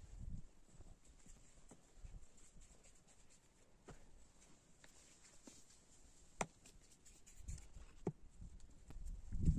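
Quiet, soft pats and thuds of hands pressing and working bread dough on a flour-covered cloth, with one sharp click a little past the middle.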